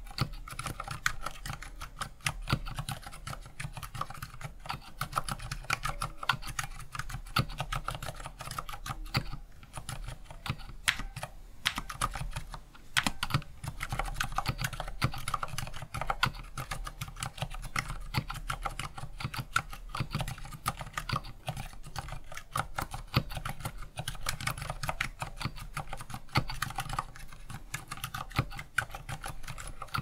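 Slow typing on a MonstarGear NINJA87 ALU XO tenkeyless mechanical keyboard with an aluminium case and plate, stock Gateron Silent Yellow linear switches, and silicone and Thinsulate dampening inside. The keystrokes come in a continuous run.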